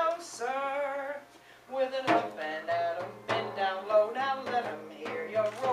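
A woman singing a melody without clear words, with low beats of a hand-held frame drum beneath the voice from about two seconds in.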